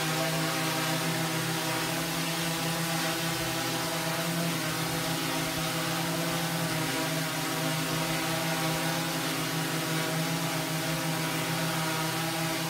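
DJI Mavic 3 quadcopter hovering, its four spinning propellers making a steady hum of several tones over a hiss of moving air.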